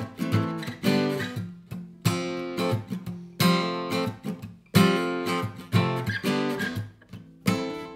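Acoustic guitar strummed in a steady rhythm, a strong accented chord about every second and a half with lighter strokes between, some chords damped short.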